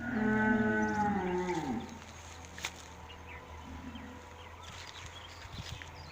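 One loud moo from a head of cattle, lasting about two seconds and dropping in pitch as it ends.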